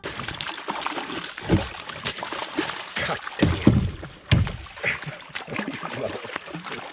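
Hooked fish thrashing and leaping at the side of a kayak, water splashing irregularly in a string of sharp splashes, the loudest about halfway through.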